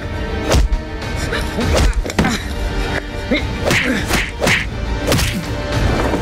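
Dramatic background music over a scuffle, with several thuds and whacks of a fight spread through it.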